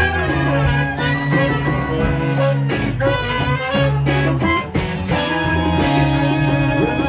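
Swing-style jazz band playing, with a moving bass line under sustained melody notes and regular drum hits.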